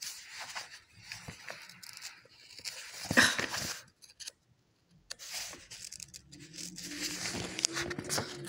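Handling noise: a book's paper page and the recording phone rustling and bumping against the microphone, with scattered scrapes and one louder rustle about three seconds in. A faint low hum joins in the second half.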